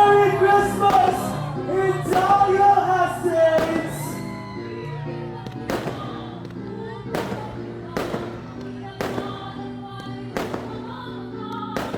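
A song with a singing voice plays, the voice strongest in the first few seconds and held instrumental notes after. Fireworks bang over it about once a second, nine or ten sharp reports in all.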